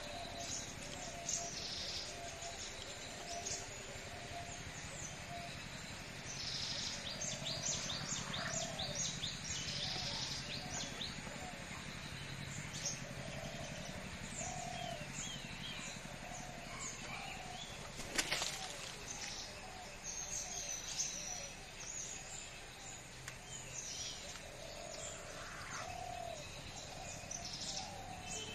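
Birds chirping and calling: many short high notes come and go, with lower repeated notes underneath, and a single sharp click about two-thirds of the way through.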